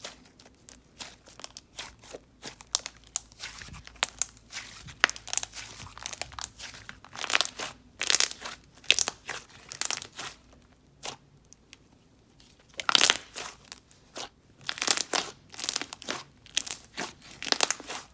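Thick jelly slime being squeezed, folded and pressed by hand, making irregular sticky clicks and crackles that come thicker in bursts in the second half.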